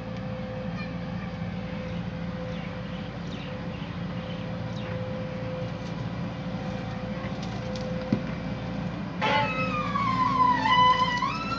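JCB JS140 excavator's diesel engine running steadily. About nine seconds in, a loud high whining tone with harmonics begins, slides down in pitch, then rises again before stopping.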